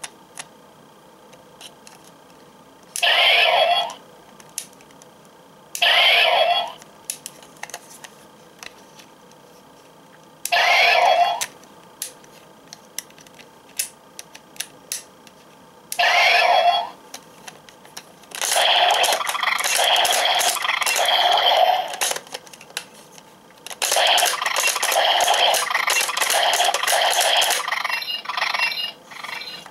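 Hopper Zecter toy transformation belt playing its electronic sound effects through its small speaker: four short effects under a second each, a few seconds apart, then two longer pulsing sequences of about four seconds each. Small clicks come between them as its parts are worked.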